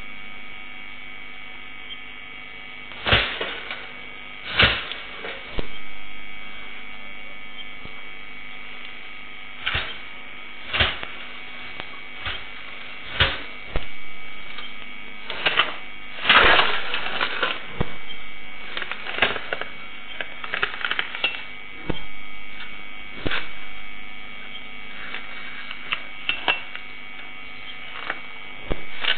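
Steady electrical hum of a CCTV camera's audio, with irregular sharp clicks and cracks scattered over it, some in quick clusters.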